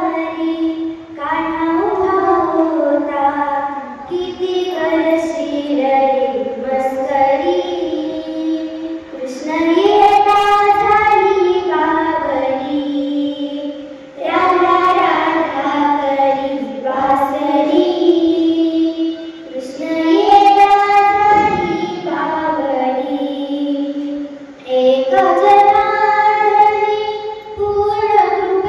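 A young girl singing solo in long, ornamented phrases, holding and bending notes, with short breaks for breath between phrases.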